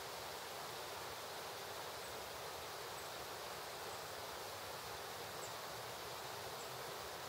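Steady, even hiss of outdoor background noise, with a few faint, short, high chirps scattered through it.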